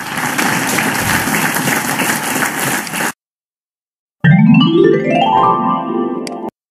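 Quiz-game sound effects. First comes an applause-like noisy burst of about three seconds, which cuts off. After a second's silence, a run of musical notes rises quickly in pitch for about two seconds as the next question opens.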